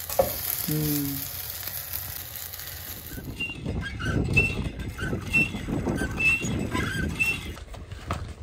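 Pancakes sizzling in a frying pan for about the first three seconds. Then a hand water pump's handle squeaks with each stroke, about one squeak a second, five times in all, over a low rumble of wind on the microphone.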